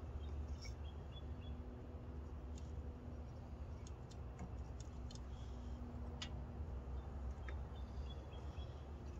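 Light clicks and knocks of kindling sticks being set into the firebox of a Pomoly Dweller Max 2.0 steel wood stove, a few scattered single taps with a small cluster about four seconds in. Under them runs a steady low rumble.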